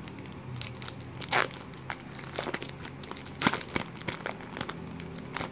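Foil trading-card pack wrapper crinkling and tearing as it is peeled open by hand: a run of irregular sharp crackles, loudest about one and a half and three and a half seconds in.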